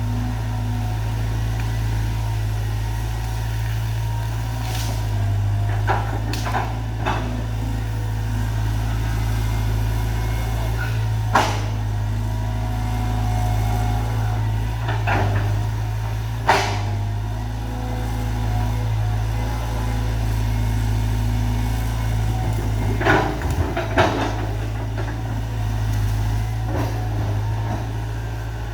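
Caterpillar excavator's diesel engine running steadily, with sharp cracks and knocks scattered through it, the loudest about eleven and sixteen seconds in and a pair near the end.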